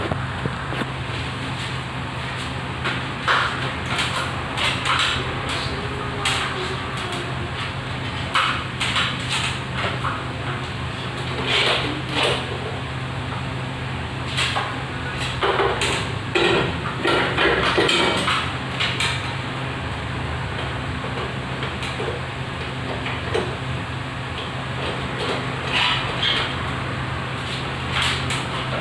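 Scattered clicks, knocks and clatter of a fluorescent tube light and its ceiling fixture being handled and taken down, over a steady low hum.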